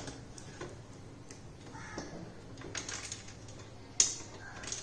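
Steel TV wall-mount plate and screws being handled against the plastic back of an LED TV: scattered light clicks and knocks, with one sharp click about four seconds in.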